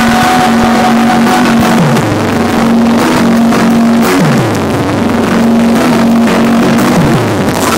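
Loud, distorted live electronic rock from a concert PA, recorded on a small handheld device. A bass synth swoops down in pitch about every two and a half seconds under a held note.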